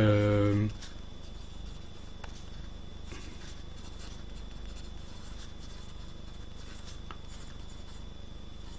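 A man's drawn-out vocal sound at the very start, then the faint scratch of a Wing Sung 698 fountain pen's fine nib on paper as he writes a line of words.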